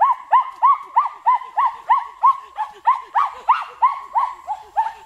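An animal calling in a fast, steady series of short arched notes, about three a second, each rising and then falling in pitch.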